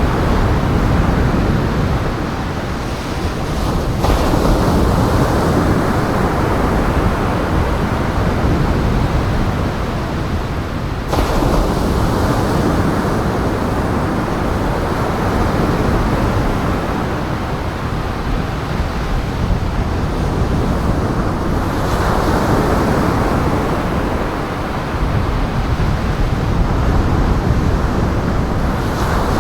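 Strong wind and breaking surf, a steady rushing noise that swells and eases, with sudden jumps in level about 4 and 11 seconds in.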